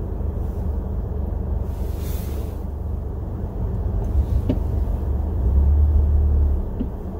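Steady low rumble of a car heard from inside the cabin, swelling louder for about a second some five and a half seconds in.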